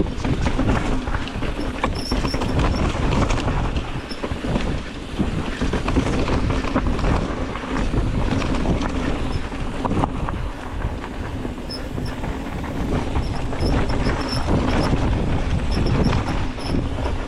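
Mountain bike riding downhill on a dirt trail: a steady rumble of tyres over dirt and rocks with the bike rattling and clattering over bumps, and wind on the microphone.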